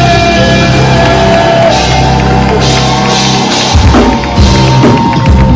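Live band playing loudly: sustained pitched notes over a heavy bass, with drums coming in hard about four seconds in.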